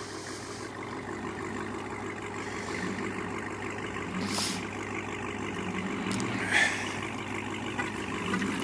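A car's V8 engine running steadily at low revs, slowly growing louder. Two short hisses break in, about four and a half seconds in and again about two seconds later.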